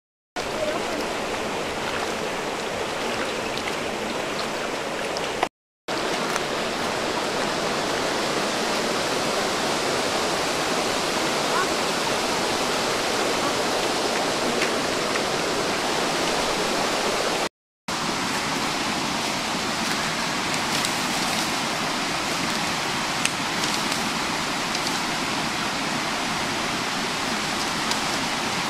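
Steady rush of flowing shallow river water. The sound drops out for a moment a few times.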